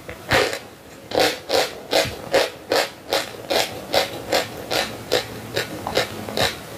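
Close-miked chewing of a mouthful of sawn Russian chalk (melovoy): dry, crunchy bites in a steady rhythm of about two and a half a second.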